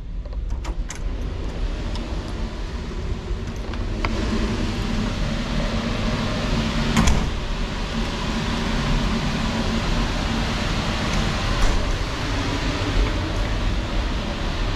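A cabin door's lever handle clicks a few times as the door is opened, over a steady low hum and rushing noise of a ship's interior machinery and ventilation. A couple of single knocks come later.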